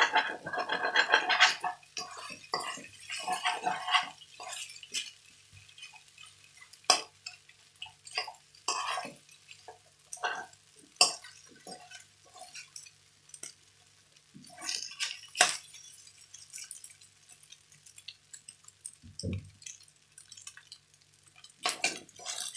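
A metal spoon scraping and knocking against a coated wok while fried rice is stirred and tossed, in irregular strokes that come thick and fast for the first second or so, then sparser.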